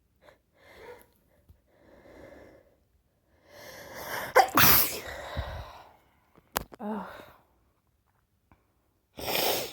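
A woman with a head cold sneezing: a couple of catching in-breaths build up, then one loud sneeze about halfway through. A sharp click follows, and another short noisy burst comes near the end.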